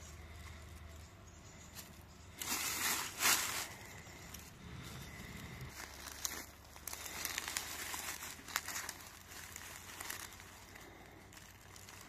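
Dry fallen leaves and twigs rustling and crackling as they are disturbed. The loudest rustle comes about two and a half seconds in and lasts about a second. A longer, patchier stretch with a few sharp snaps follows later.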